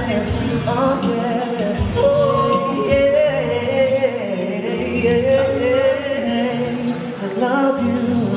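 Live music: men singing into microphones over instrumental backing with a steady bass line.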